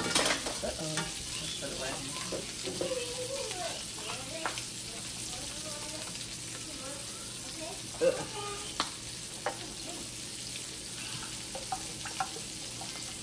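Chicken breasts frying in oil in a nonstick skillet, a steady sizzle, with a few sharp clicks and taps over it, the loudest about eight seconds in.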